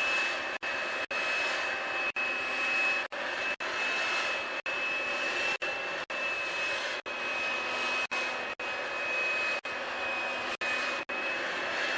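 Vacuum cleaner running steadily over carpet, picking up spilled sugar, with a high steady whine over its rushing noise; the sound drops out for an instant about every half second.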